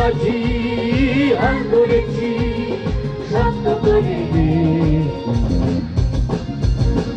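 Group of singers performing a Bengali song in chorus to harmonium accompaniment, over a steady drum beat.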